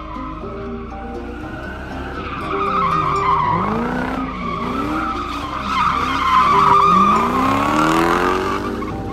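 Lexus GS430's 4.3-litre V8 revving up and down repeatedly as the car drifts, with the tyres squealing throughout and getting louder from about three seconds in. Background music with a beat runs underneath.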